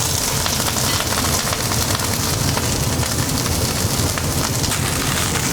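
Blanched broccolini sizzling steadily in hot olive oil in a sauté pan.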